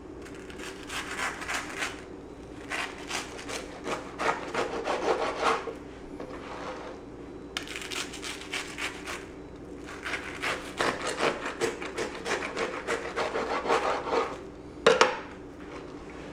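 A long kitchen knife sawing through the toasted bread of a stacked club sandwich, in several spells of quick, scratchy back-and-forth strokes. One sharp knock near the end, as the knife is laid down on the plastic cutting board.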